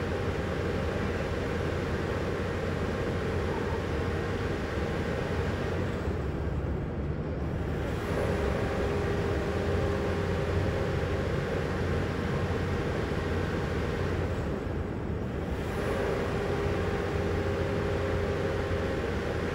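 A steady low mechanical rumble with a mid-pitched hum over it, which drops out briefly twice.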